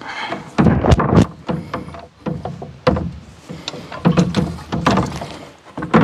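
Irregular knocks and scrapes as a British Seagull Forty Plus outboard motor, not running, is handled and shifted on the rim of a plastic wheelie bin.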